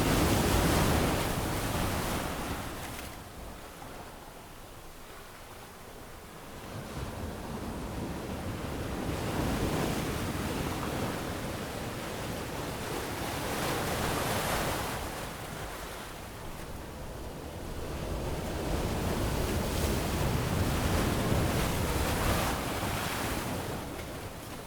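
Ocean waves breaking and washing up a sandy beach, the surf swelling and ebbing in slow surges every several seconds, with some wind.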